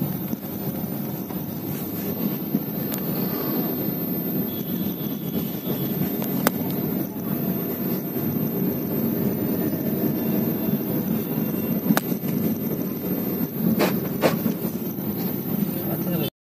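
Steady engine and road noise inside a moving car's cabin, with a few sharp clicks; it cuts off suddenly near the end.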